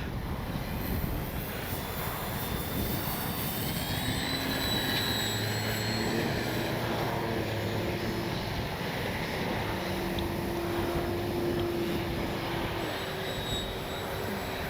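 RC electric plane's brushless motor and propeller whining in flight, the pitch wandering up and down with throttle, over a steady rumble of wind on the microphone.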